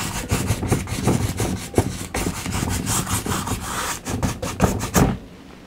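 Flat nylon paintbrush scrubbing acrylic paint onto a stretched canvas in quick back-and-forth strokes, a dry rasping rub, which stops about five seconds in.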